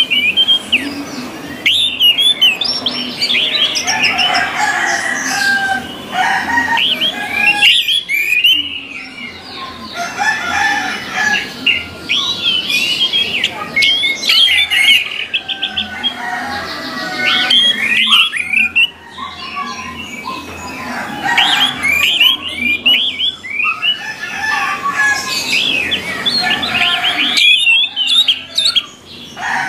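Orange-headed thrush song: a long run of varied, fast whistled phrases and chirps, broken by a few short pauses.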